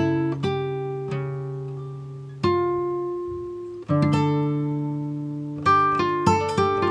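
Background music: a plucked acoustic guitar playing notes and chords that ring out and fade. The notes come slowly at first, then quicker near the end.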